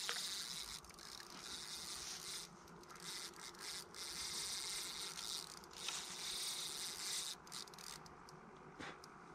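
Spinning reel's drag buzzing in stretches as a large carp pulls line off the spool. It stops about seven and a half seconds in.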